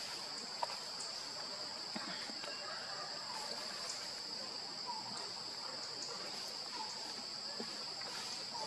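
Insects droning steadily at a high pitch, with a few faint short chirps and light clicks scattered through it.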